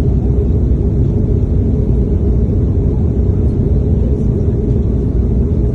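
Airliner cabin noise in flight: a steady, loud low rumble of engines and rushing air.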